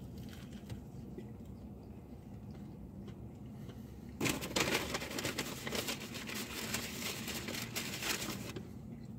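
Quiet chewing of a bite of burger, then about four seconds in, paper food packaging rustling and crinkling for about four seconds.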